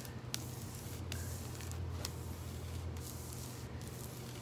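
Clothes iron sliding and pressing over a sheet of fabric transfer foil, a soft rubbing and crinkling of the foil's plastic film, over a steady low hum.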